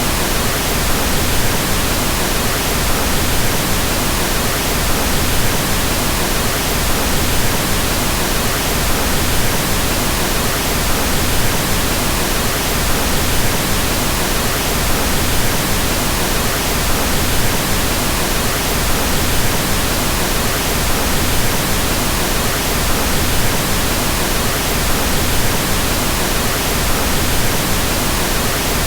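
Steady pink noise: an even hiss with its energy weighted toward the low end, like soft rain or wind, unchanging throughout.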